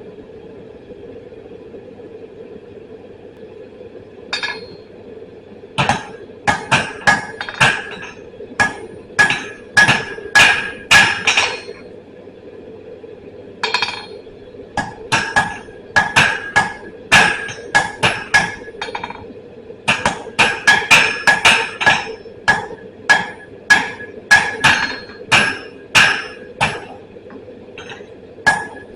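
Hand hammer striking steel on an anvil, forging a punch. The blows come in runs of about two a second with short pauses between runs, each with a bright ring, over a steady hum.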